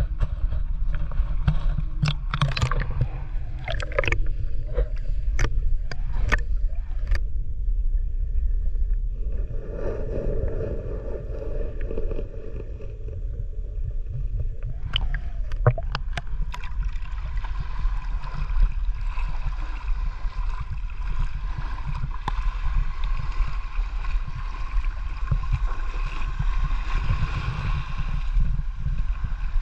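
Muffled water sound with a constant low rumble, as picked up by a camera under water. Scattered sharp clicks and knocks come in the first several seconds, and a steadier hiss with a faint hum fills the second half.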